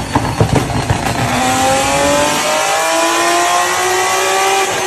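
Car exhaust popping and banging as it spits flames, the backfires of unburnt fuel igniting in the exhaust. About a second in, the engine settles into a rev that climbs slowly in pitch.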